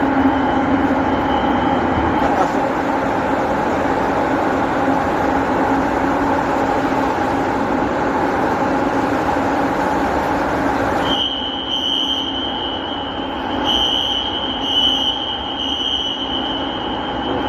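Building fire alarm sounders going off during a system test and working: a loud, harsh continuous sound with a low hum. It stops about eleven seconds in, leaving a shrill high-pitched tone.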